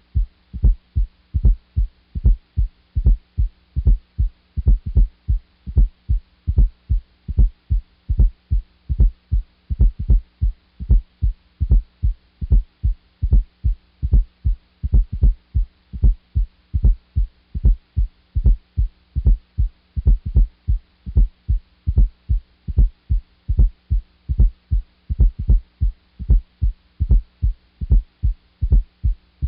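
Recorded heart sounds from auscultation: a regular heartbeat heard as evenly paced pairs of short low thuds, the first and second heart sounds, over a steady low hum.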